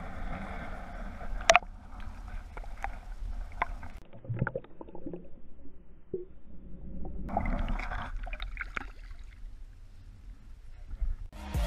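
Muffled water sloshing and bubbling heard through a submerged action camera's housing, with scattered sharp clicks and knocks, the loudest about a second and a half in.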